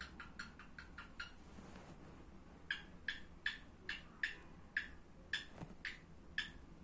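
Light, sharp taps of a paintbrush dabbing on canvas: a quick run of them at first, a short pause, then an even rhythm of about two or three taps a second.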